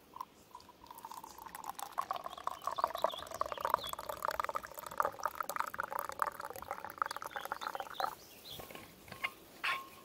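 Coffee pouring from a Stanley vacuum flask into its stainless steel cup: a steady stream filling the cup, which stops about eight seconds in.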